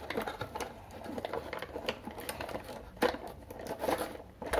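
Plastic toy packaging being handled, with rustling and a run of small irregular clicks as a toy figure is worked free of its plastic tray and wire ties. A sharper click comes about three seconds in.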